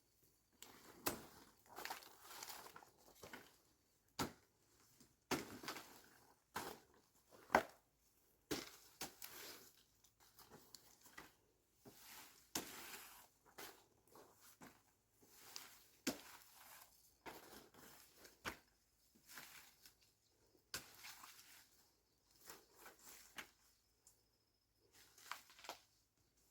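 Faint, irregular handling noises: scattered knocks, clicks and rustling with short gaps between them.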